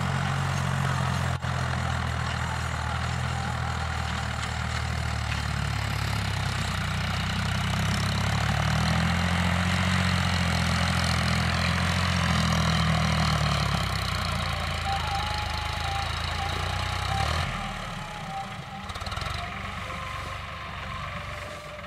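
Tractor diesel engine running steadily under load while pulling a rotary tiller through a field. Its pitch rises slightly about ten seconds in, and about three-quarters of the way through the low engine drone drops away and the sound becomes noticeably quieter.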